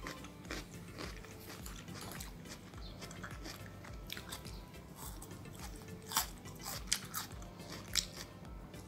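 Close-up crunchy bites and chewing of crisp Korean oriental melon (chamoe) flesh, with irregular crunches and the sharpest bites about six, seven and eight seconds in.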